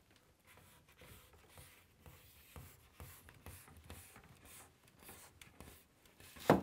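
Plastic door seal being slid and pressed onto the edge of a glass shower door: faint scraping and rubbing with small clicks, then one sharp knock near the end.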